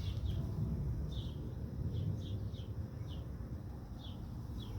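A bird chirping outdoors: about ten short, falling high notes scattered irregularly, over a steady low rumble.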